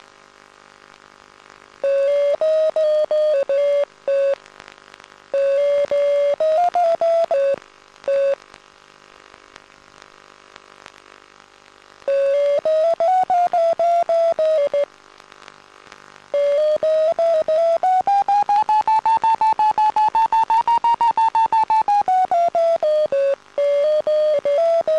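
Electronic variometer audio tone from a Pitlab FPV system, beeping rapidly in stretches with silent gaps between. In the second half its pitch rises and then falls back, showing the glider's climb rate building and easing while it climbs in a thermal.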